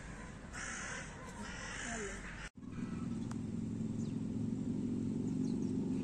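A crow cawing twice, harsh calls, in the first two seconds. A steady low hum follows from about halfway in.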